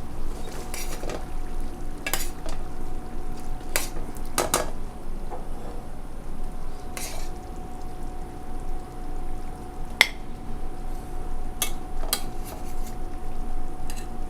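Serving utensils clinking, knocking and scraping against a pan and a plate as braised chicken in a thick cream sauce is dished up: scattered sharp clinks, the sharpest about ten seconds in, over a steady faint hum.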